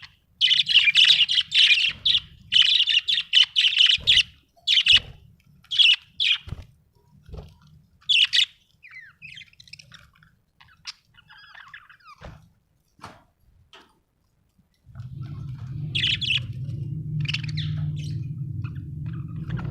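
Budgerigars chirping and chattering: dense, rapid warbling for the first few seconds, then scattered chirps and squawks that thin out to a brief lull. About three-quarters of the way in, a steady low hum starts, and a few more chirps come over it.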